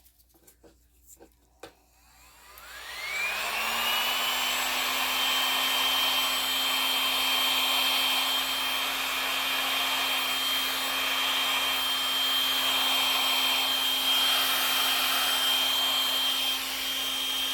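A handheld hot-air blower, such as a heat gun, spins up about two and a half seconds in, its pitch rising, then runs steadily with a high whine over a rush of air. A few small clicks come before it starts.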